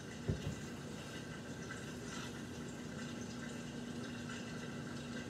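Faint, steady bubbling of food cooking, over a steady low hum, with one short low thump a fraction of a second in.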